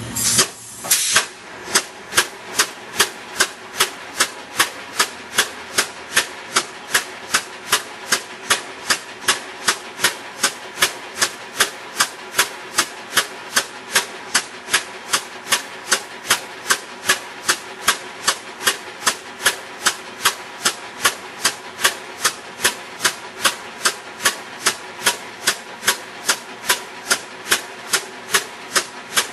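Class 2 free piston engine running on compressed air. A brief hiss of air at the start, then a steady run of sharp, evenly spaced exhaust blasts, about two a second.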